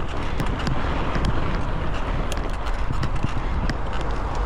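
Wind rushing over the microphone on a moving mountain bike, with a steady low tyre rumble and many short rattles and clicks as the bike rides over a rough, wet dirt trail.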